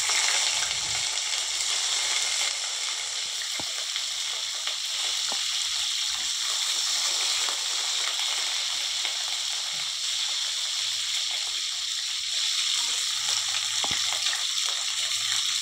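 Cauliflower florets and potato pieces frying in hot ghee and oil in a kadhai: a steady sizzle, with a couple of light clicks.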